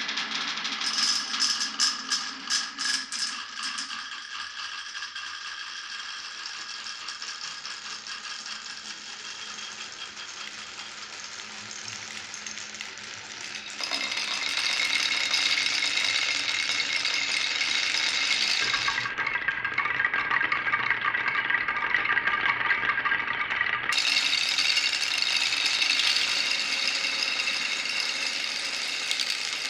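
Many marbles rolling and clattering along marble-run tracks in a steady stream, with sharp clicks of marbles striking each other in the first few seconds. About halfway through the rattle gets louder and higher, and its character shifts abruptly a few times.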